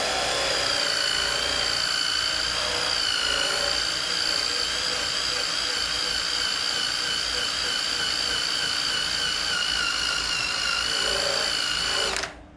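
Cordless drill with a scrubbing pad attachment running steadily, its motor whining at a high, fairly even pitch as the spinning pad scrubs the painted fiberglass body of a 1979 Corvette. The drill stops abruptly near the end.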